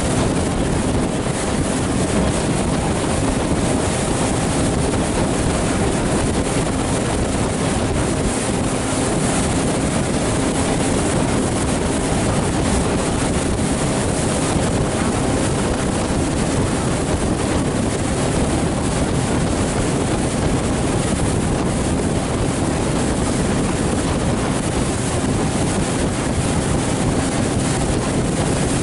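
Motorboat under way at speed: a steady engine hum under the rush of the hull through the water, with wind noise on the microphone.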